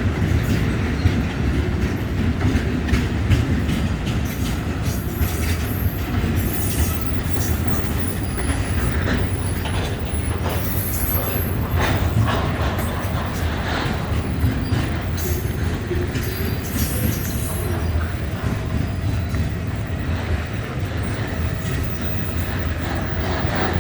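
Freight train of tank wagons rolling past, a steady rumble with wheels clicking over rail joints and brief high wheel squeals now and then.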